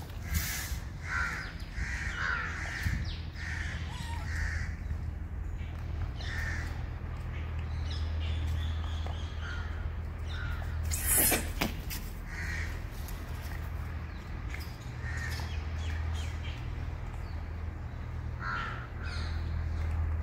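Crows cawing in short runs of calls, several in a row near the start and more scattered later, over a steady low hum. A single sharp knock stands out about eleven seconds in.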